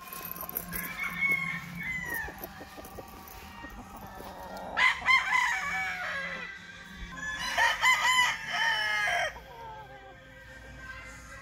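Five-and-a-half-month-old rooster crowing: two loud crows, one about five seconds in and one about eight seconds in, with softer calls before them.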